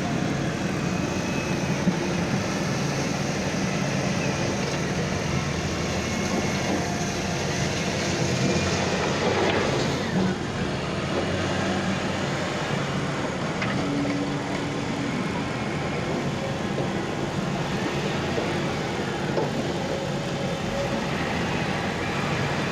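JCB excavator's diesel engine running steadily while the machine works, with a brief swell about nine seconds in.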